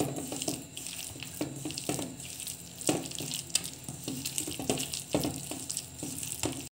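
Hand squeezing and mixing a moist dough of mashed banana, crumbled bread and flour in a stainless steel bowl: wet squelching with irregular taps and scrapes against the steel. It cuts off abruptly near the end.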